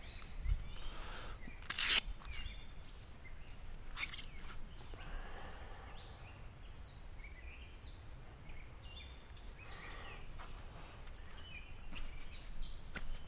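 Birds singing and calling around a pond, many short high chirps and song phrases over a faint outdoor background. A sharp, loud noise stands out about two seconds in.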